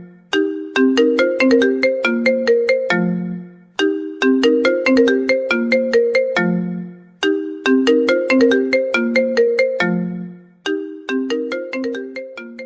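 Mobile phone ringtone melody: a phrase of quick, short mallet-like notes stepping down to a low held note, repeated about every three and a half seconds.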